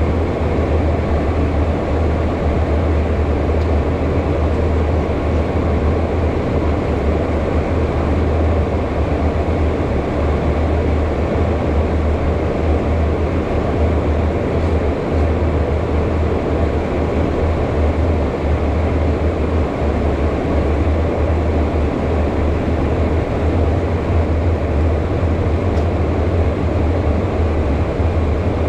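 Steady in-flight cockpit noise of a HondaJet, the twin GE Honda HF120 turbofan business jet: a constant low hum under an even rush of airflow, unchanging throughout.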